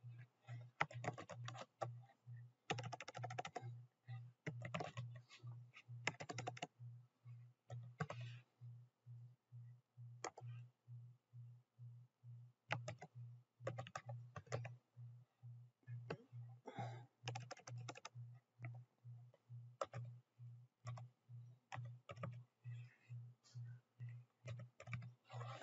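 Typing on a computer keyboard: short bursts of keystrokes with pauses between them.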